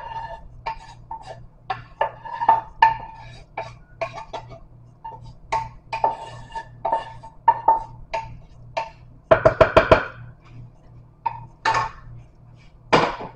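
A cooking spoon knocking and scraping against a pan as sautéed vegetables are emptied into a crockpot: a string of sharp ringing taps, with a quick run of six or seven rapid knocks about nine seconds in and one loud clank near the end.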